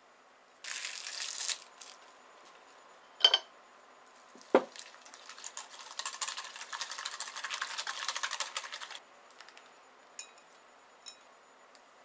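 Plastic cling wrap crinkling as it is pressed over a glass bowl, then two sharp knocks, then a wire whisk beating cooled custard cream in a glass bowl with quick rattling strokes for about four seconds.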